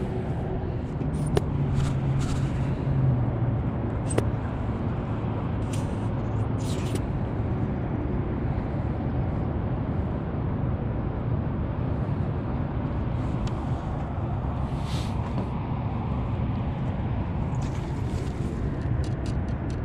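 Steady low rumble of a motor vehicle running, its hum sinking slightly in pitch in the first few seconds, with scattered sharp clicks from handling gear.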